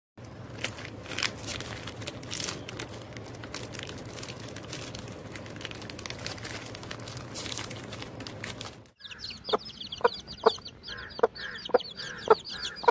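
Crinkling and crackling of a foil snack wrapper being torn open by hand. About nine seconds in it gives way to hens clucking: a run of short loud clucks, with a high chirping twitter above them.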